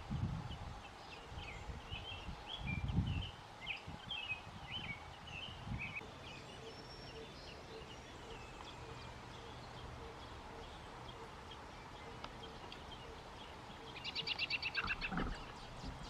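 American robin nestlings begging near the end: a rapid, evenly pulsed run of high chirps lasting about a second and a half as they gape for food. Before that, scattered short bird chirps and a few low thumps.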